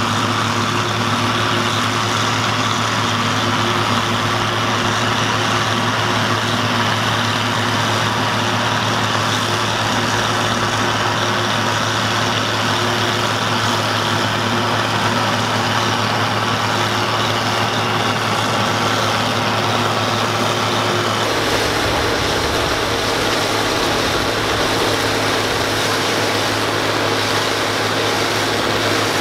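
Allis-Chalmers 190XT tractor engine running steadily under load while pulling a Gehl 750 forage harvester that is chopping corn for silage, the chopper running along with it. About two thirds of the way through the sound shifts and a deeper rumble comes in.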